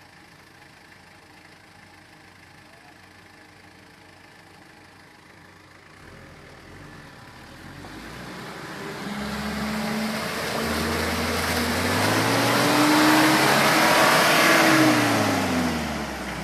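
Mitsubishi Triton L200 pickup's engine running low and steady, then from about six seconds in revving hard under load, its pitch climbing to a peak and falling back near the end, with a rising rush of noise at the loudest point.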